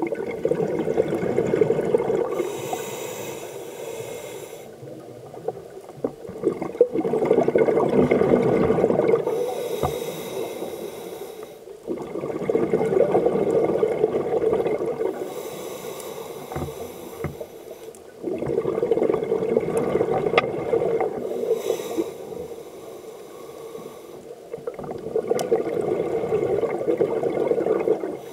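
Scuba diver breathing through a regulator underwater: a long surge of exhaled bubbles about every six seconds, five times, with a brief hiss of inhaling between some of them.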